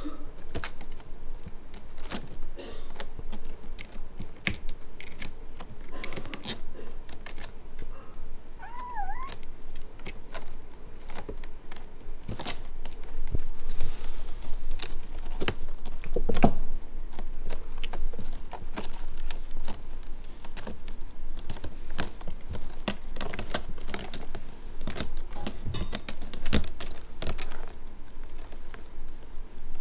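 Kittens' claws scrabbling and clicking on a woven cat house and the pen floor, a run of scattered sharp clicks. One short kitten mew comes about nine seconds in.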